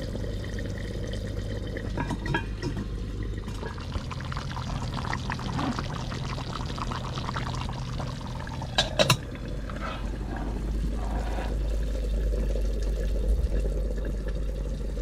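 Pots of soup and sauce simmering and bubbling on a camping gas stove, a steady bubbling sound, with two quick metallic clinks about nine seconds in.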